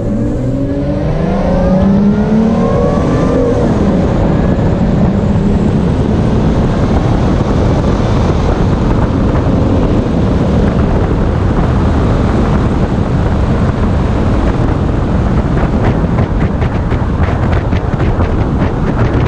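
Toyota FJ Cruiser's 4.0-litre 1GR-FE V6 at full throttle, not supercharged. The engine climbs in pitch for the first few seconds, drops at an upshift, and then gives way to a steady loud rush of engine, wind and road noise at speed.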